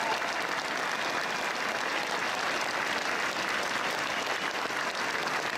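Large crowd applauding, a steady dense patter of many hands clapping that holds throughout.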